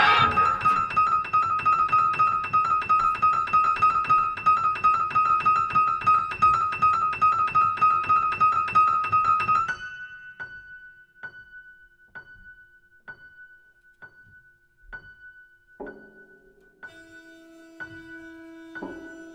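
Experimental improvised music on prepared piano: one high note hammered over and over, about four or five strikes a second. About ten seconds in it drops suddenly much quieter to sparse single strikes about a second apart, and near the end lower held tones join in.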